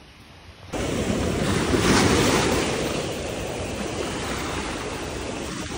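Sea waves washing on the shore, with wind on the microphone. The sound comes in suddenly less than a second in, swells about two seconds in, then holds steady.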